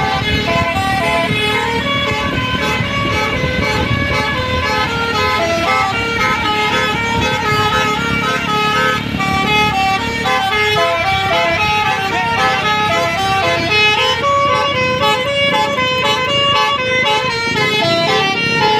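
Bus telolet horn, a multi-note air horn playing a quick stepping melody over and over. Underneath, the bus engine runs hard at full throttle, strong for about the first ten seconds and then fading.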